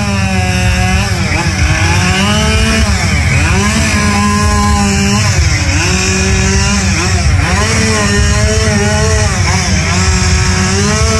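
Two-stroke chainsaw running hard and steady, its engine note dipping and recovering every second or two as it bites into the wood.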